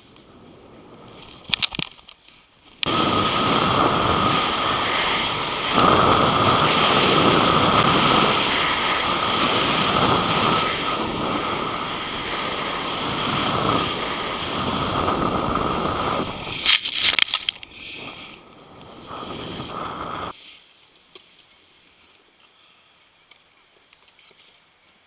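Snowboard sliding and scraping over packed snow, with wind blowing across a mounted action camera's microphone. The noise starts suddenly about three seconds in, runs for some seventeen seconds with a few sharp knocks near its end, then stops abruptly.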